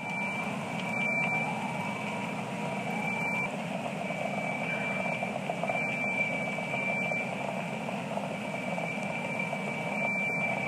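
Steady rushing noise after an explosion, with a high, thin alarm tone sounding on and off in short spells of about half a second.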